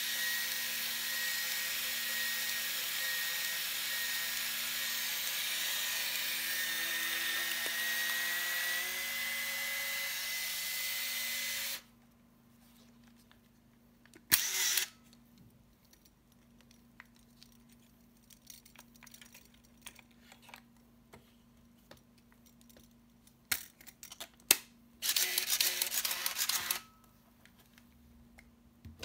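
Minolta 7000 AF's built-in film-transport motor whirring steadily with a thin whine that rises slightly in pitch, then cutting off after about twelve seconds. Later comes a short click-and-whir of the shutter firing and winding on, two sharp clicks, and a second motor whir of nearly two seconds.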